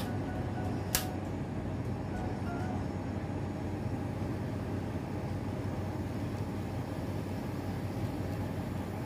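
A single sharp click about a second in, typical of an N-scale electric turnout's point motor throwing, over a steady low hum.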